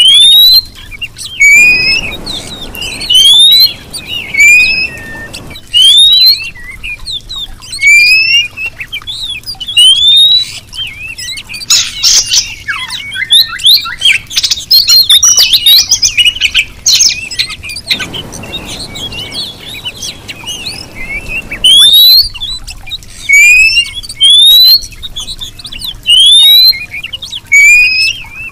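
Female oriental magpie-robin calling: loud, repeated rising whistles, one every second or two, with a denser run of scratchy chattering notes around the middle. Two spells of faint hiss lie underneath.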